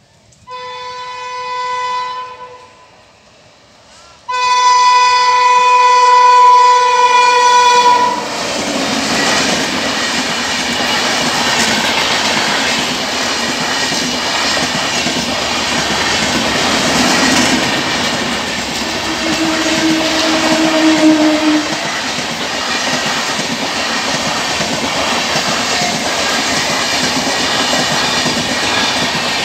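Indian Railways express train sounding its horn, a short blast and then a long, louder one about four seconds in. Its coaches then run past close by with a steady rumble and wheel clatter over the rail joints.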